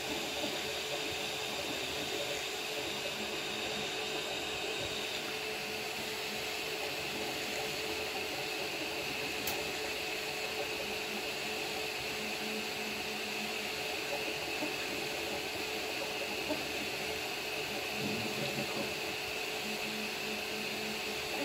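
Anycubic Kobra Max 3D printer running mid-print: the steady hiss and hum of its cooling fans, with the stepper motors whirring in short spells as the print head moves.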